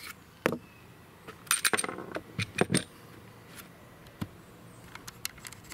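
Light metallic clicks and clinks of small metal things being handled, an irregular series with the loudest cluster about one and a half to three seconds in.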